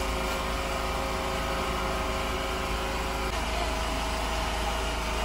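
Steady mechanical hum of a running engine or motor, with a slight change in its tone about three seconds in.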